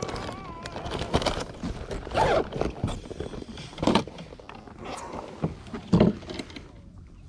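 Close handling noise from fishing gear and clothing in a kayak cockpit: rustling and small clicks, with louder knocks about two, four and six seconds in.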